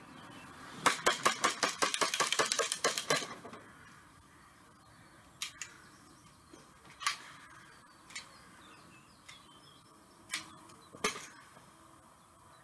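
A toy pistol clicking rapidly as stand-in gunfire: a quick burst of sharp clicks, about eight a second for about two seconds, followed by a few single clicks.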